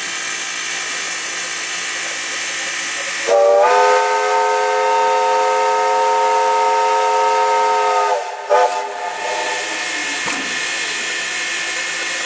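Soviet L-class steam locomotive hissing steam while standing. About three seconds in, its steam whistle opens with a slight rise in pitch and holds a loud chord of several tones for nearly five seconds, followed by one short toot.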